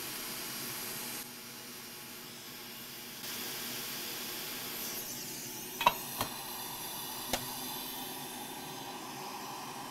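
Steady hiss of blowing air from the electronics repair bench, dropping a little for about two seconds near the start and then coming back up, with three small clicks in the second half.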